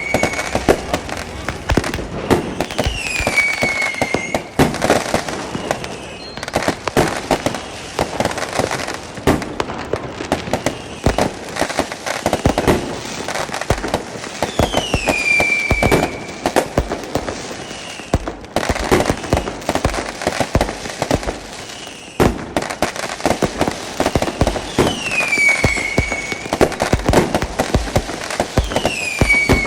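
Diwali firecrackers and fireworks going off without pause: dense crackling and bangs, with a whistle that falls and then holds, heard four or five times.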